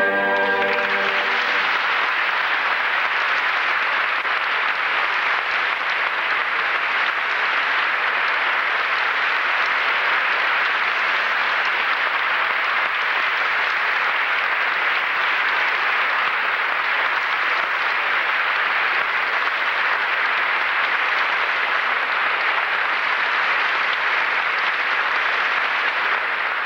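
Orchestra's last chord dying away in the first second, then a large theatre audience applauding steadily and densely.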